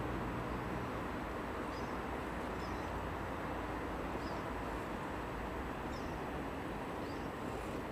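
Steady outdoor background hiss, with a few faint, short high chirps scattered through it.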